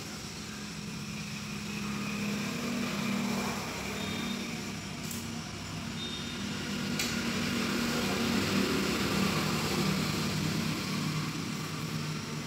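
A steady low mechanical hum over an even hiss, swelling a little in loudness around the middle.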